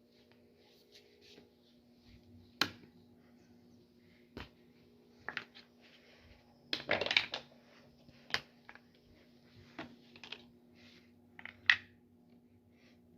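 Plastic parts of an electric fan being handled and fitted together: scattered clicks and knocks, a denser clatter about seven seconds in, and sharp snaps early on and near the end. A low steady hum runs underneath.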